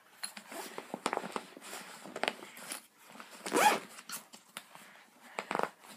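Nylon backpack being handled and zipped: irregular rustles, scrapes and clicks as gear is packed into its pockets, with a louder rasp a little past halfway.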